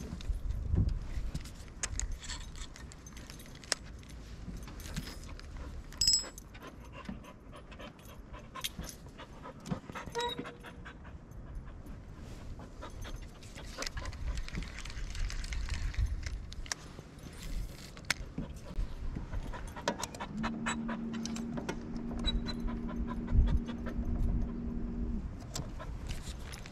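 A dog panting, with scattered clicks and knocks. A steady hum runs for about five seconds, starting about twenty seconds in.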